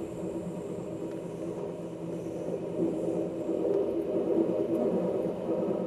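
Steady rumble of an Amtrak passenger train in motion, heard from inside the coach, running close alongside a string of covered hopper cars. It grows somewhat louder about halfway through.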